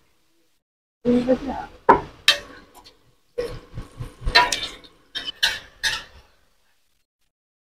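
Metal cooking utensils clattering and knocking against pans and trays at a martabak stall, in three short spells of sharp clicks and clanks with dead silence before and after.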